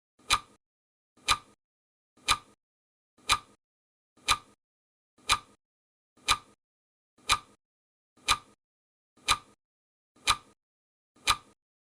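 Countdown timer's clock-tick sound effect: one sharp tick every second, evenly spaced, with silence between the ticks.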